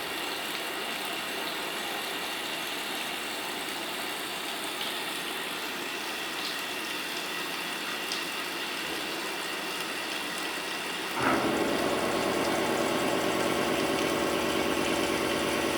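CNC machining centre with a 90-degree angle head running, a steady machine hum with a whine of fixed tones. About eleven seconds in the sound suddenly gets louder and deeper, with a stronger rumble and more tones, and stays that way.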